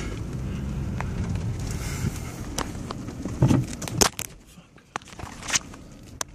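A car's engine and tyres give a steady low rumble as it moves off, then come a series of clicks and knocks from the camera being handled inside the car, the loudest a thump about three and a half seconds in, after which the rumble falls away.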